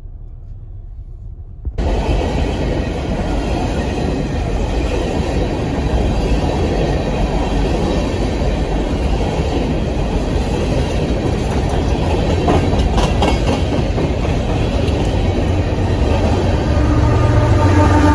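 A train rolling past, its wheels rumbling and clacking on the rails in a loud, steady roar that begins abruptly about two seconds in, after a quieter low rumble. A few steady humming notes come in above the rumble near the end.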